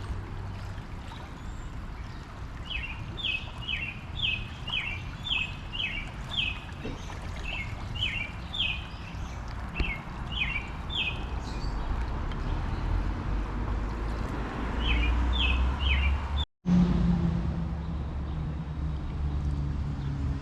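A small bird chirping over and over, short quick notes that each drop in pitch, in two runs, over a steady background rush. After a brief dropout near the end, a low steady hum takes over.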